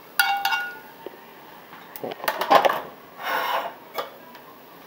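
Metal tongs and a perforated metal colander clanking, the first knock ringing briefly, then a cluster of clatters about halfway and a short rustle of crisp fried tortilla pieces as the colander is handled to drain off the oil, with a last click near the end.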